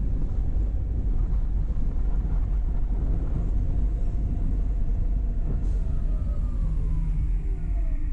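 A car driving: steady low rumble of engine and road noise, with a faint engine tone that falls in pitch near the end.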